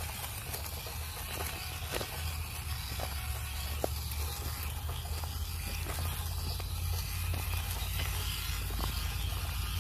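Hobby Plus CR-18 1/18-scale RC crawler driving over dirt and rocks: a steady hiss of tyres and grit, with scattered sharp clicks of pebbles, over a steady low rumble.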